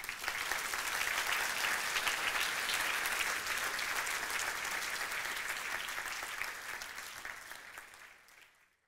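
Audience applauding at the end of a talk, a dense clatter of many hands that sets in at once and dies away over the last couple of seconds.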